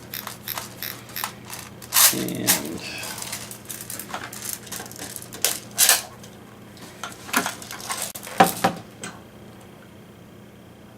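Airsoft M14 magazine being handled: a quick run of ratcheting clicks from its winding wheel, then scattered sharp plastic-and-metal clacks as the magazine is worked into the rifle, the loudest about six and eight and a half seconds in.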